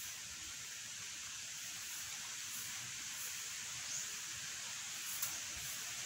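Steady outdoor background hiss, with faint rustling of hands setting a string snare among thin sticks and a small sharp click about five seconds in.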